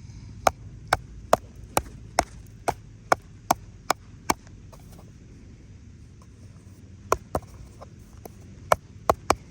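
A run of sharp knocks on wood, about two or three a second: ten in a row, then after a pause of a few seconds five more near the end.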